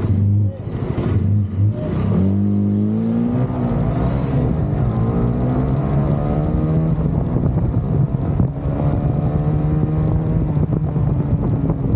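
Motorcycle engine accelerating, its pitch climbing over several seconds, then running at a steady speed.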